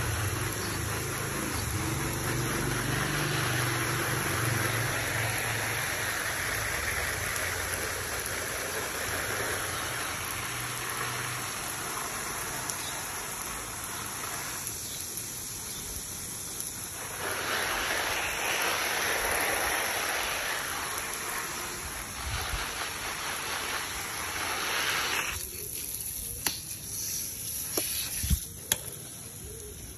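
Water spray from a garden hose hissing onto leafy lettuce and cabbage plants. It pauses for a couple of seconds about halfway, comes back, then stops a few seconds before the end, leaving a few small taps.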